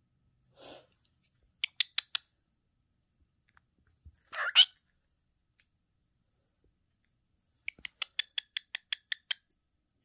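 A cockatiel's beak tapping against the phone in sharp clicks: four quick taps about two seconds in, a short louder sound about halfway, and a fast run of about ten taps near the end.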